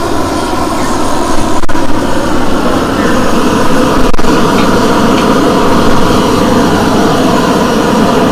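A forge running with a steady, loud rushing noise while a blade heats in it, with two brief clicks about one and a half and four seconds in.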